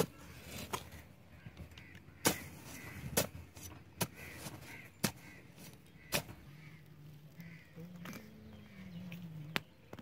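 A narrow metal digging blade jabbed by hand into dry, hard-packed soil, giving sharp, irregular strikes about once a second as the earth is chipped loose.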